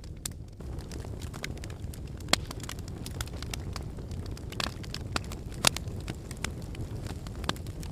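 Wood fire burning in a fireplace: a steady low rumble of flames with frequent sharp crackles and pops, two louder snaps at about two and a half and six seconds in.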